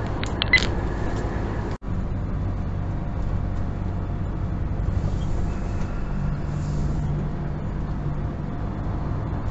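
Engine and road noise of a vehicle driving, heard from inside its cab: a steady low rumble. There are a few short clicks about half a second in and a momentary break about two seconds in.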